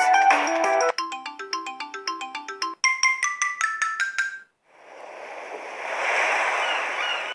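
Samsung Galaxy Grand Prime ringtones playing one after another, each cut short. Two quick melodies of short chiming notes, the second pitched higher, give way to a hissing tone that swells up.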